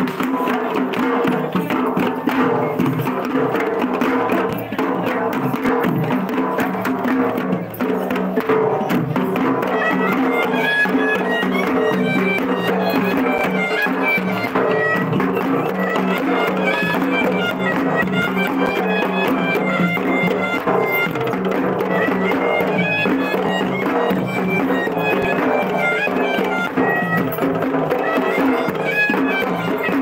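Sri Lankan procession music: drums beating, joined about ten seconds in by a reed pipe playing a melody over a steady drone.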